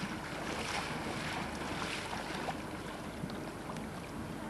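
Waterside wind and water: a steady hiss of wind on the microphone with water at the shore, swelling a little about a second in.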